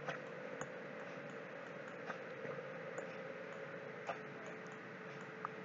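Faint computer mouse clicks, a handful of short ticks at irregular intervals, over a low steady hiss and faint hum of the recording.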